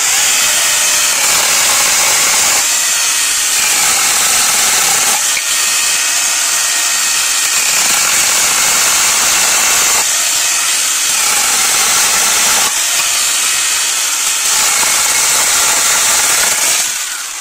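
HYCHIKA CS18D 8-inch brushless battery mini chainsaw running at full speed, its chain cutting through thin dry branches with a steady high whine; it winds down and stops near the end.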